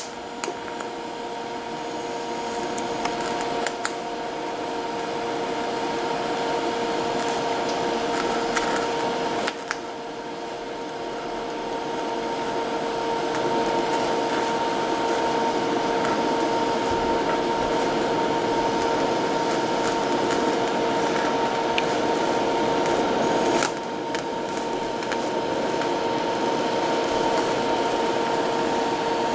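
TIG (gas tungsten arc) welding arc burning steadily: a hissing buzz with a steady tone through it, broken briefly twice, about ten seconds in and again near 24 seconds, as the arc is paused and restarted.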